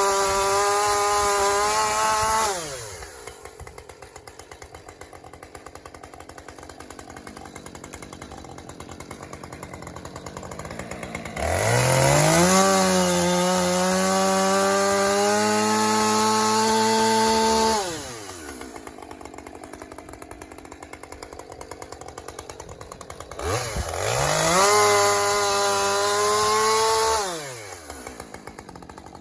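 Husqvarna 545 two-stroke chainsaw with a 50 cc engine, idling and revved up to high speed three times, each rev held for a few seconds before it drops back to idle. The first rev is already under way and falls away about two seconds in.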